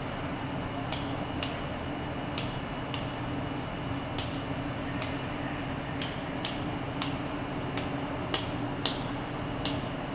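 Hammer striking a steel chisel on stone, sharp metallic taps with a high ring, about one every half second at an uneven pace, over a steady rumble of background machinery and traffic.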